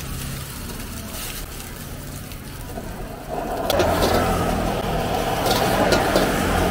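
Gas wok burner running under a wok while fried rice and vegetables are stir-fried: about three and a half seconds in, the burner's roar and the sizzling get much louder as the flame comes up under the freshly added vegetables, with the metal ladle clinking and scraping against the wok several times.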